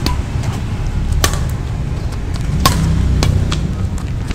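Badminton rackets hitting a shuttlecock in a rally: sharp single hits about every second and a half, over a steady low rumble.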